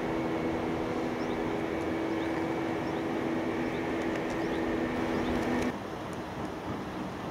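Steady hum of an engine running, with several even tones over outdoor background noise. It cuts off suddenly about three-quarters of the way through, leaving only a quieter, even rushing haze.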